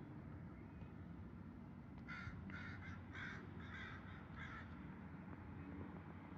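A bird calling about six times in quick succession, each call short and harsh, about two seconds in, over a steady low background rumble.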